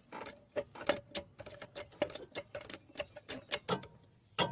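Ratchet wrench clicking in quick, irregular runs as it spins the nut onto a stabilizer link's stud, with two louder clicks near the end.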